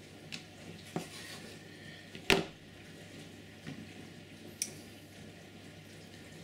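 Small hand tools and wires being handled on a workbench mat around a model locomotive chassis: a few light clicks and taps, with one sharp click a little over two seconds in.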